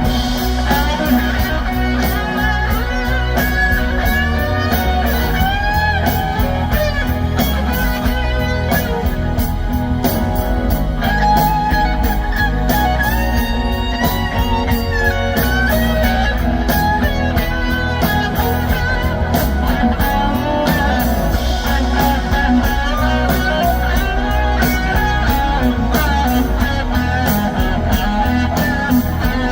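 Live rock band music: an electric guitar plays a solo of long, bending lead notes over the full band.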